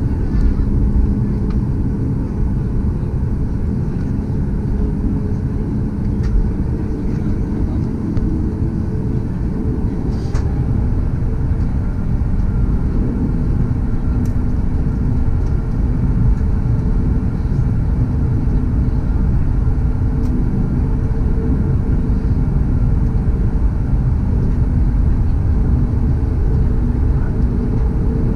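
Cabin noise of a Boeing 737 MAX taxiing, its CFM LEAP-1B turbofan engines at low taxi thrust: a steady rumble with a low hum, heard from inside the cabin.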